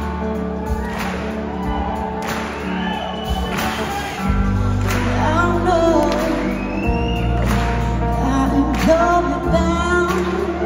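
Live soul-rock band with singing: electric guitars, bass, drums and backing vocalists, heard from the audience in a large concert hall. The drums hit about once a second, and the bass gets heavier about four seconds in.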